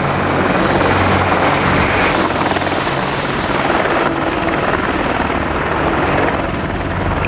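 AH-64 Apache attack helicopter flying low, its rotor beating and engines running steadily. The high hiss drops away about four seconds in.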